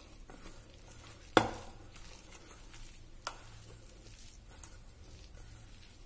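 A hand kneading wet onion and gram-flour pakoda batter in a stainless steel bowl, with soft mixing sounds throughout. A sharp knock about a second and a half in and a smaller one at about three seconds.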